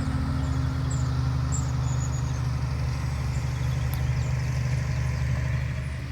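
An engine running steadily at low speed, a little quieter near the end.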